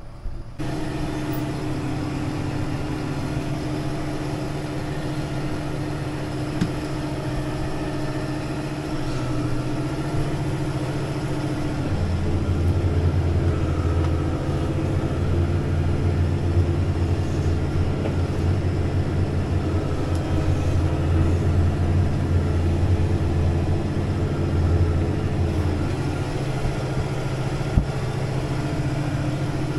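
Deutz-Fahr 6175 TTV tractor's diesel engine running steadily while pulling a McHale Fusion3 Plus baler. About twelve seconds in, a deeper hum joins and the sound grows a little louder, easing again a few seconds before the end.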